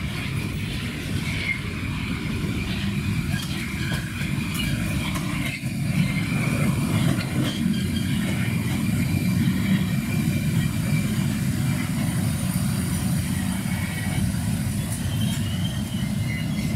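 Electric commuter train running along the platform: a steady low rumble of wheels and running gear with a faint high whine, growing a little louder about six seconds in as the cars pass close by.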